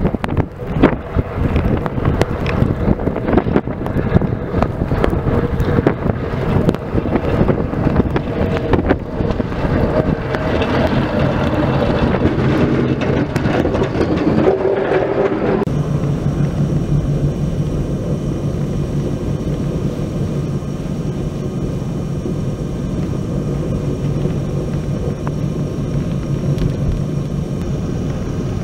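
Wind gusts buffeting the microphone while a snowplow truck approaches and passes close, its noise building to a peak at the pass about two-thirds of the way through the first half. Then an abrupt change to a steady vehicle drone, driving along behind the plow truck.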